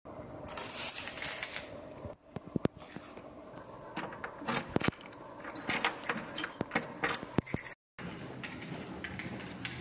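Irregular sharp clicks and light metallic jingling over a low background noise, cut off briefly twice.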